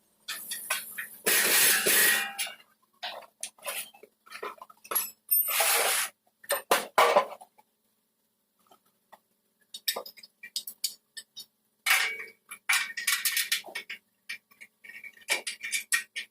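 Metal bumper parts and hand tools clinking and clattering as the parts are handled and fitted together. Irregular sharp clinks and rattles come with a few noisy bursts about a second long, separated by short quiet gaps.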